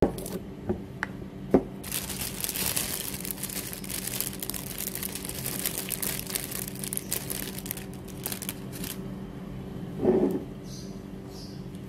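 Dry crinkling and crackling handling noise lasting several seconds, after a few sharp clicks, over a steady low hum; about ten seconds in comes a short knock as a glass jar of chocolate spread is handled.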